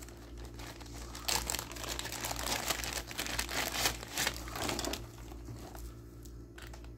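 Clear plastic bags crinkling and rustling as wired cables are handled and pulled out of them. The rustling comes in busy bursts from about a second in, then grows quieter near the end, over a low steady hum.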